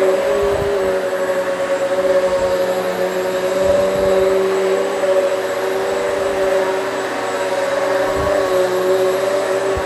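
Hoover Elite Swivel XL Pet upright vacuum cleaner running on a low-pile rug: a steady motor whine whose pitch wavers slightly, with a few low thuds.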